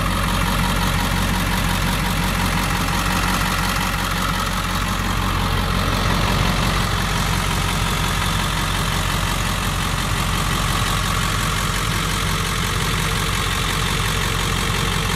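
A 2002 Ford F250's 7.3-litre Power Stroke turbo-diesel V8 idling steadily.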